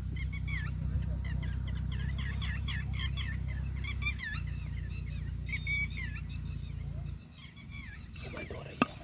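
Birds calling over and over, short high calls that rise and fall, over a steady low rumble that stops abruptly about seven seconds in. A single sharp click, the loudest sound, comes just before the end.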